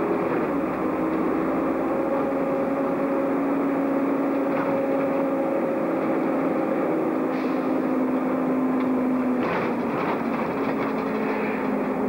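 City bus engine and drivetrain running as the bus drives along, heard from the driver's cab: a steady whine whose pitch steps several times, with a few short rattles about ten seconds in.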